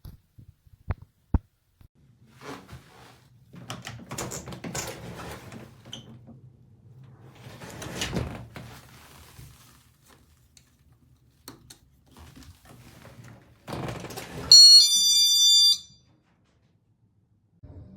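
A battery magnetic door/window alarm unit is handled: a couple of sharp clicks, then rustling and knocking as it is fiddled with. Near the end it sounds a short, loud electronic two-tone chime, a higher tone then a lower one, lasting about a second.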